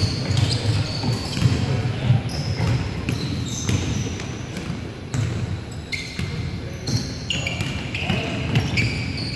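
Basketballs bouncing and sneakers squeaking on a hardwood gym floor during a pickup game: repeated dull thuds with many short, high squeaks, and players' voices in the background.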